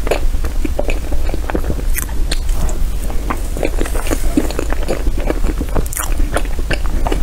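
Close-miked wet chewing and mouth smacks of a person eating soft, creamy matcha crepe cake, with many short irregular clicks.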